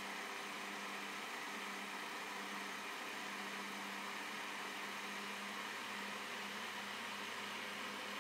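Steady low electrical hum with an even fan-like hiss from small appliances running in the car, unchanging throughout.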